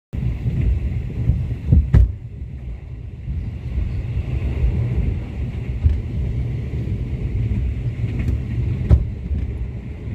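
Diesel-hauled passenger train running, heard from on board as a steady low rumble, with a few sharp knocks about two, six and nine seconds in.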